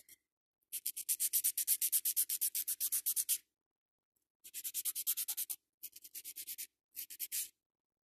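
Hand nail file rasping rapidly back and forth across an acrygel nail extension, shaping the nail, at about seven strokes a second. It comes in four bursts, the first and longest of nearly three seconds, then three shorter ones after a pause of about a second.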